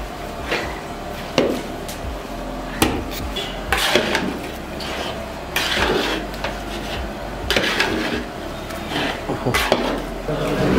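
A metal ladle knocking and scraping against the sides of a large metal pot as it turns over a pot of biryani rice, with sharp clanks at irregular intervals about a second or two apart.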